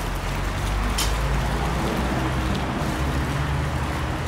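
Steady low rumble of a running motor, with a single sharp click about a second in.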